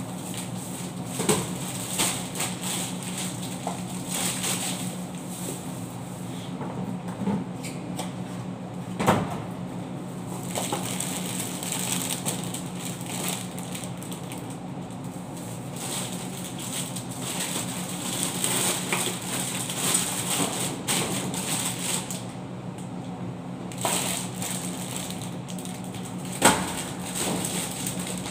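Plastic snack packets crinkling and rustling as they are handled and stacked on shelves, with a few sharper knocks, one the loudest near the end. A steady low hum runs underneath.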